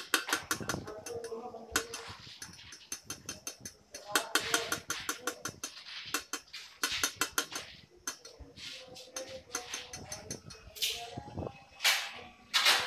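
Tape being unrolled and wrapped around bundled copper AC pipes: quick crackling runs of clicks as it peels off the roll, with a few louder ripping rasps near the end.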